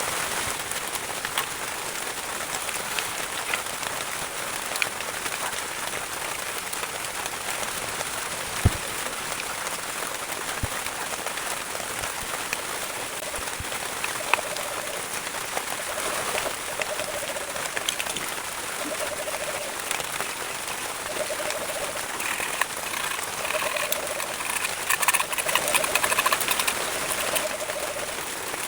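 Doves cooing, short low calls repeated in groups from about halfway on, over a steady crackling hiss like rain.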